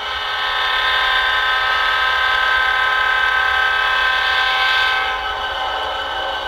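Diesel locomotive air horn sounding one long blast, a steady chord of several tones that swells up within the first second and fades away in the last second or so.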